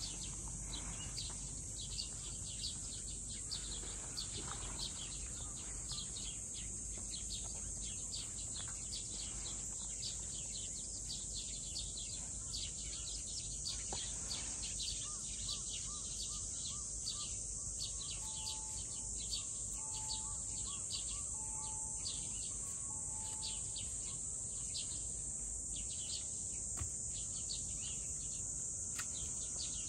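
Outdoor ambience of a steady, high-pitched insect drone with many quick chirps over it. In the second half a bird gives a few short, evenly spaced notes.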